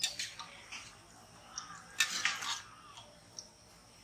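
Metal slotted spoon scraping and knocking against an iron kadai while donuts are turned in hot oil: a scatter of short scrapes and clinks, busiest about two seconds in.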